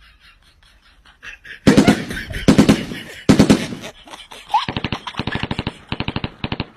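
Three loud bangs less than a second apart, then a fast rattling run of sharp knocks, about eight a second, like machine-gun fire.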